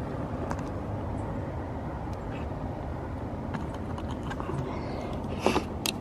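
Chinese diesel heater running with a steady low rumble. A few light clicks and, near the end, a brief rustle and a sharper click come from the display cable and its plug being handled.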